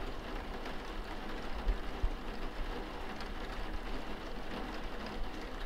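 Steady rain-like hiss, a rain sound effect, with a couple of short low thumps about two seconds in.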